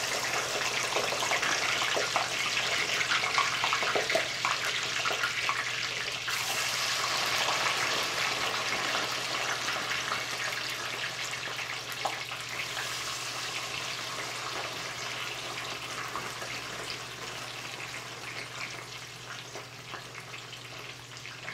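Crinkle-cut potato fries deep-frying in hot oil just after being dropped in, a dense bubbling sizzle with crackles, with marinated steak frying in a skillet alongside. The sizzle is loudest early on and slowly dies down.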